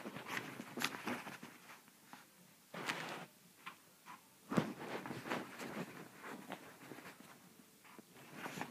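A chihuahua scuffling on bedding as it wrestles with a black cloth. Irregular rustling of fabric with small thumps and clicks, and one sharper knock a little before halfway.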